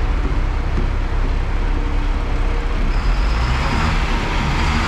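Heavy city road traffic: the engines of queued buses and cars running in a jam, a steady low rumble.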